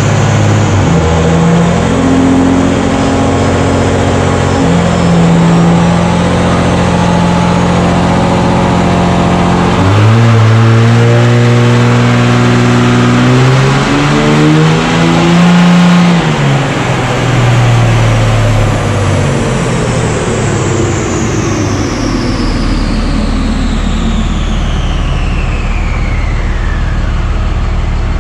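A 5.9L Cummins turbo-diesel making a pull on a chassis dyno. The engine note climbs in steps, drops about ten seconds in and climbs again, then falls away as the run ends. Over the last several seconds a high whine slides steadily down in pitch as it winds down.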